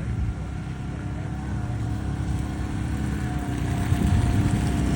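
Motor vehicle engine running with a steady low rumble, growing gradually louder.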